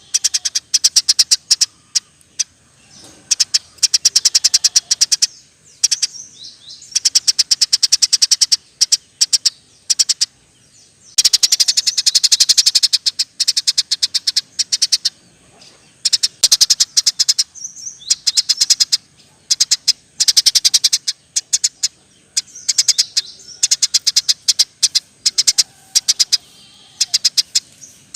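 Eurasian tree sparrow chirping vigorously in rolling runs of very rapid, high chirps, each run lasting a second or two with short pauses between.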